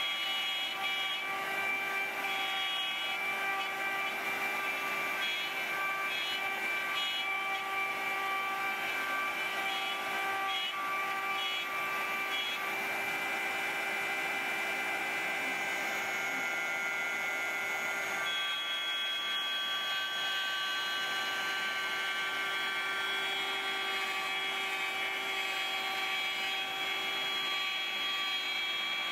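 CNC router spindle running with its bit cutting a pocket in a wooden board: a steady whine of several tones over cutting noise, the tones shifting a little past halfway as the cut changes.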